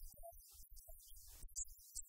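Faint background music with a pulsing bass line.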